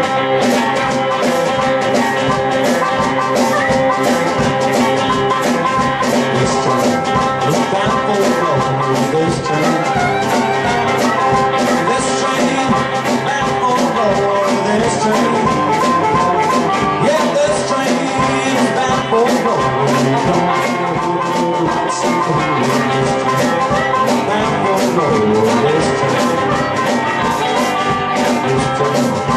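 Live blues trio playing: a harmonica over an electric hollow-body guitar and a drum kit keeping a steady beat.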